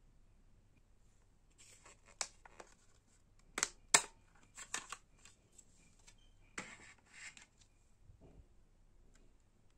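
Plastic clicks and short scrapes as a welding helmet's auto-darkening filter cartridge is handled in its lens holder, with the sharpest click about four seconds in.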